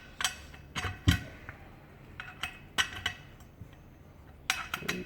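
Office chair caster wheels being pushed into the holes of the chair's leg base: a series of sharp clicks and knocks, with one heavier thump about a second in and a quick run of clicks near the end.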